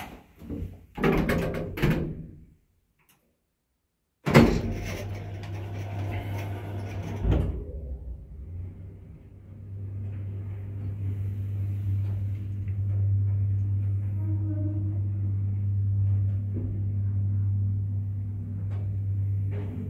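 Marvi lift's automatic stainless-steel sliding doors closing, starting suddenly about four seconds in and running for about three seconds. Then the car travels toward the basement with a steady low hum.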